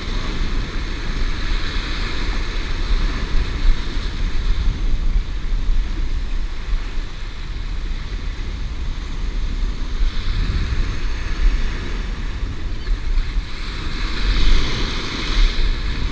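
Surf washing and breaking against the granite blocks of a jetty, with wind buffeting the microphone in gusts. The hiss of the water swells near the end.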